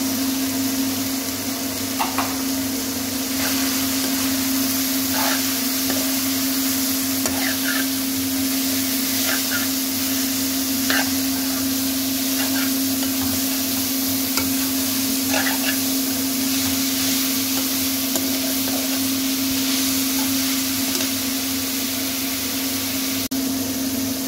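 Chicken and shredded vegetables sizzling in a metal wok while a slotted steel spatula stirs them, scraping and clinking against the pan now and then, over a steady low hum.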